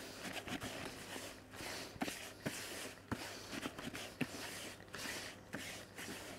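A hand mixing damp method-feeder groundbait in a plastic bucket: a crumbly rustle and squish with irregular soft clicks and knocks as the mix is rubbed and pressed against the bucket. The moistened groundbait is being worked until it starts to bind.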